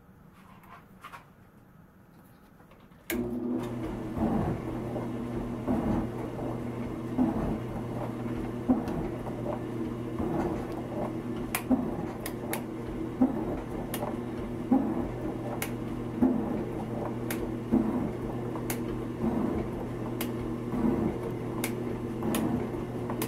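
Logan lathe starting up about three seconds in and then running with a steady hum while a milling cutter takes a slow, hand-fed cut in steel. Irregular sharp ticks sound over the hum.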